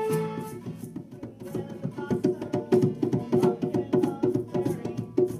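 Live folk tune: a flute's held note ends about half a second in, then acoustic guitar strumming carries on under quick, steady percussion hits from a small hand drum.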